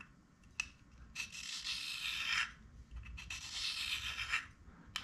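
Carbide lathe tool bit stroked by hand against a hone to put a very small nose radius on its tip: a short click, then slow scraping rubs of about a second each, three in all.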